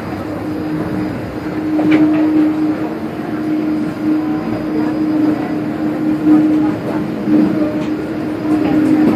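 Steady cabin noise inside an Airbus A380: an even rush of air and engine noise with a constant hum, and a faint knock about two seconds in.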